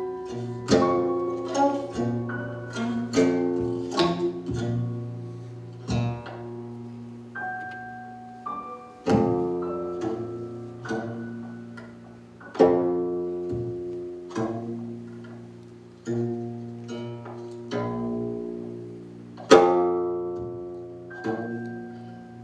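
Slow instrumental music: single plucked string notes, each ringing out and fading, over a held low tone.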